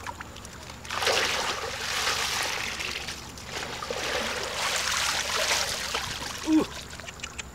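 Muddy water sloshing, splashing and running through a plastic basket as it is scooped through a shallow pool and shaken to rinse out the mud, in two long spells with a short pause between them.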